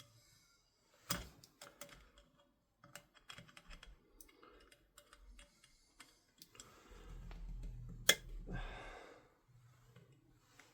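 A small hand tool picking and scraping at a tiny C-clip on an airsoft rifle's receiver, making scattered light metallic clicks. A sharper click comes about a second in and another near eight seconds, with a stretch of handling noise around it.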